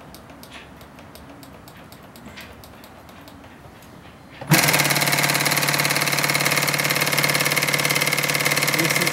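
Atlas AT7667 cylinder-arm zigzag industrial sewing machine starting up about halfway through and stitching leather at high speed: a fast, even needle rhythm that holds steady once it is going.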